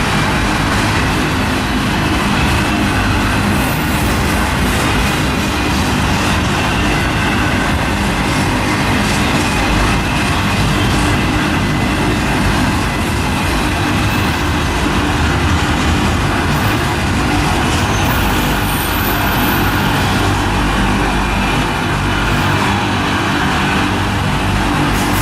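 Union Pacific freight train rolling past, a steady loud rumble of wheels on rail with faint clicks.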